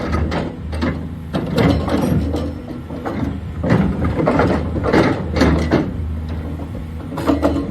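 Caterpillar 336D2L excavator running: a steady low engine drone under frequent metallic clanks and rattles.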